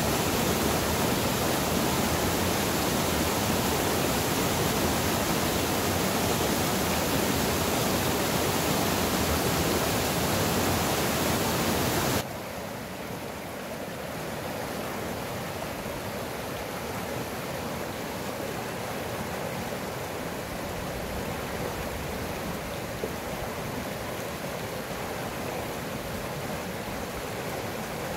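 Rushing water of a small mountain river, a steady rush; about twelve seconds in it drops abruptly to a quieter rush.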